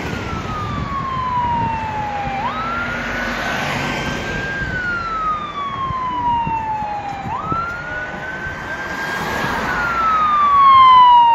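Emergency vehicle siren in a slow wail. Each cycle is a quick rise, a short hold and a long falling glide, repeating about every five seconds, and the siren grows louder near the end as the responding units approach.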